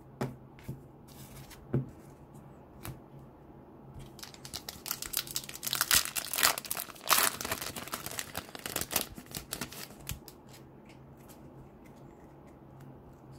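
Foil trading-card pack torn open and crinkled, the wrapper crackling loudly for several seconds in the middle. A few short rustles and clicks of wrapper and card handling come before and after.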